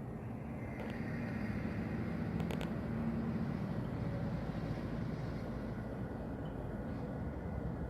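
Steady low rumble, like distant vehicle or aircraft noise, with a faint thin high tone joining about a second in and a few quick clicks around two and a half seconds in.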